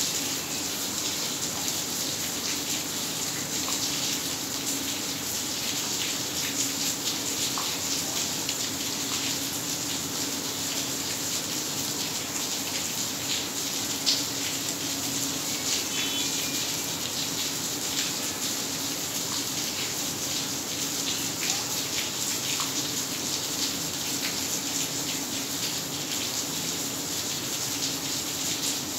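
Heavy rain falling steadily onto a flooded yard, splashing into standing water as a continuous hiss of countless small drop impacts.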